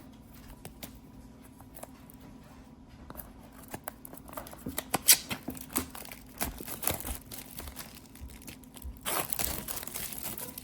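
Handling noise: irregular sharp clicks and crinkling, with a denser stretch of rustling near the end, over a faint steady hum.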